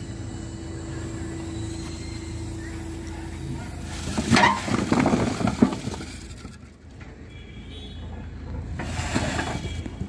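JCB telehandler's diesel engine running steadily as its tipped bucket dumps a load of red clay bricks onto a concrete roof slab: a loud clatter of bricks tumbling and knocking together from about four to six seconds in, and a shorter clatter near the end.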